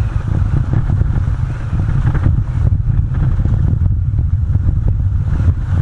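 An off-road vehicle driving along a rough gravel track: a loud, steady low rumble of engine and tyres on the gravel.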